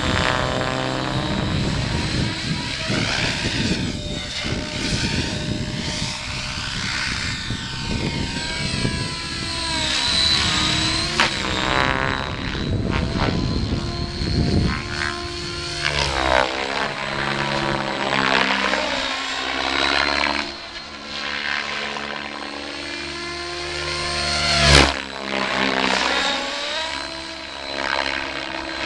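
E7 radio-controlled helicopter flying slow 3D manoeuvres: rotor blade noise and a high motor whine, rising and falling in pitch as it swings about overhead. There is a brief sharp thump near the end.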